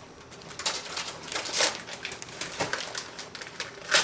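Gift wrapping paper being torn and crinkled by hand as a present is unwrapped: a string of crackling rustles and rips, with the loudest tear near the end.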